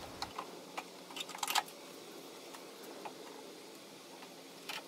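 Faint light clicks and taps of hands handling a metal Jeep half door: several in the first second and a half, one more near the end, over quiet room tone.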